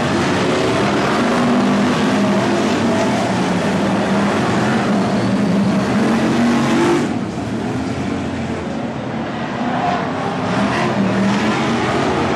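A pack of BriSCA F1 stock cars with V8 engines racing at full throttle through a bend on a shale oval. The sound eases off about seven seconds in as the cars move away, then rises again as more cars come round.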